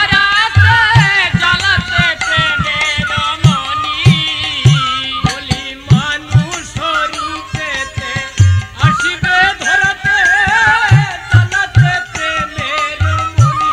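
Padabali kirtan music: a wavering melody over repeated hand-drum strokes.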